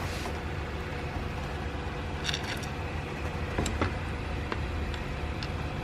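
A few light metallic clicks and taps from shifter parts being handled and fitted, over a steady low background hum.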